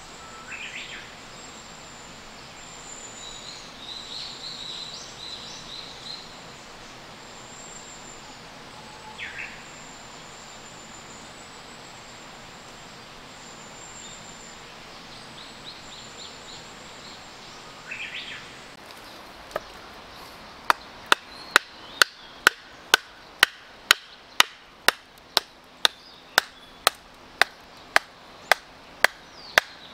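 Outdoor ambience with a few short bird chirps for the first two-thirds, then sharp wooden knocks at about two a second: a wooden baton striking the spine of a knife to split a stick of firewood (batoning).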